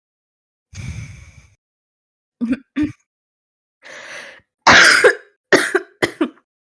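A young woman's deep throat clearing, then two short coughs, a breath in, and a run of three loud barking coughs near the end, which the uploader calls a smoker's cough.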